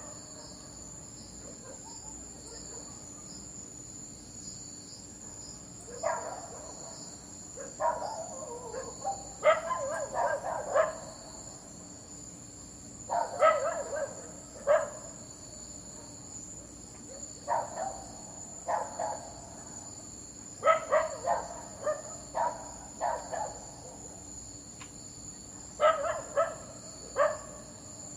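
A dog barking in short volleys of several barks, with pauses of a few seconds between volleys, over a steady high-pitched hum in the background.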